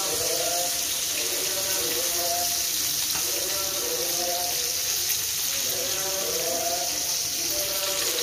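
Breaded chicken leg pieces deep-frying in hot oil in a pan: a steady sizzle and bubbling of the oil. A fainter voice-like sound runs behind it.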